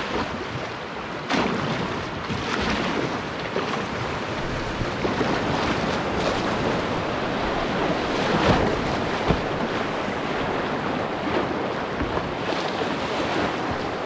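River rapids rushing and splashing around a canoe running them, with a few louder splashes and wind noise on the microphone.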